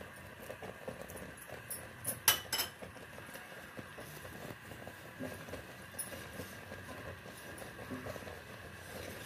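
Wooden spoon stirring milky kheer in a steel pot, with soft scraping and small knocks against the pot; two sharper clicks about two and a half seconds in.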